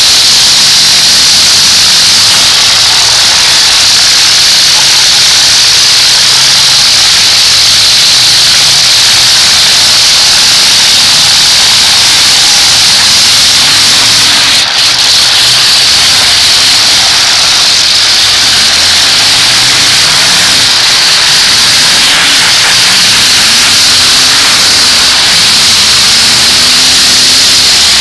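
Several demolition derby cars' engines running and revving hard, loud and steady. The revs rise and fall repeatedly in the second half.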